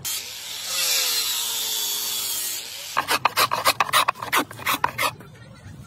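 Shaving and rasping a wooden cricket bat blade by hand: a long steady hiss with a falling whine in it for nearly three seconds, then about ten quick rasping strokes, some five a second.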